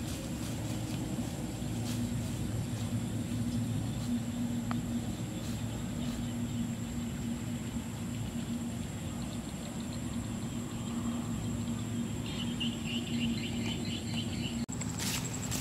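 Open-field ambience dominated by a low, steady hum from a distant engine, with a thin, high, steady insect whine over it. About twelve seconds in, a short run of rapid insect chirping comes in for a couple of seconds.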